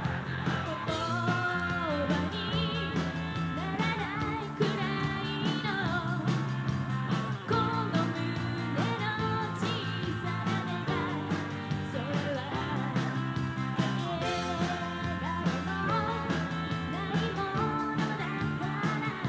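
A rock band playing live: drum kit, electric bass and electric guitar, with a woman's voice singing the melody over them.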